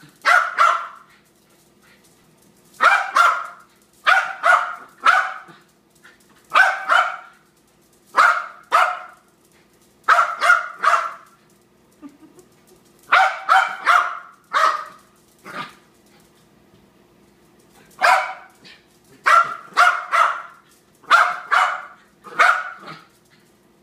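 Jack Russell Terrier barking excitedly at a laser-pointer dot, in quick clusters of two or three sharp barks with short pauses between them.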